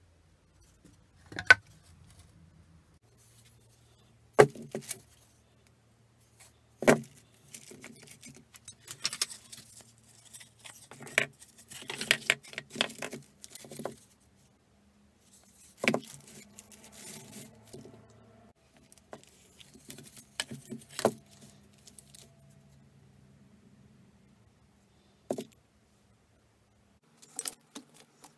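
Pine and plywood blocks handled on a workbench: a handful of sharp wooden knocks as pieces are set down and knocked together, with rubbing and sliding of wood in between.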